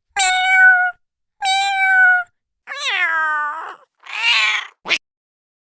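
Domestic cat meowing: four separate meows of under a second each, the first two held at a steady pitch, the third sliding down and the fourth rougher, then a short sharp cry about five seconds in.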